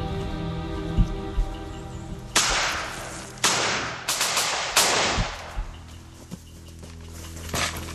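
Background music with steady tones, cut through by four sharp crack-like hits in quick succession a little over halfway in, each trailing off, and one more near the end.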